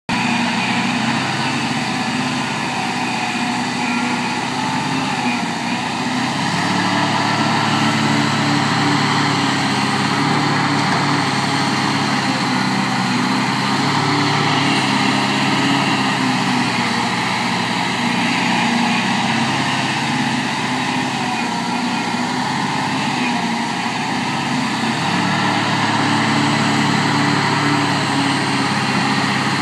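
Caterpillar 245 hydraulic excavator's diesel engine running steadily while it digs, its note shifting a little as the hydraulics take the load of the boom and bucket.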